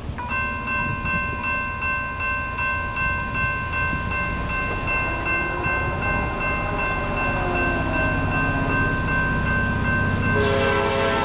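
Horn of an approaching Norfolk Southern train: one long steady chord held for about ten seconds, changing to a lower, fuller chord near the end. Under it the low rumble of the train grows slowly louder as it nears.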